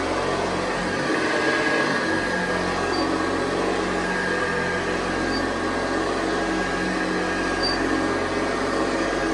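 1964 Hoover Convertible Model 584 upright vacuum cleaner running steadily, its motor giving an even whine over a low hum.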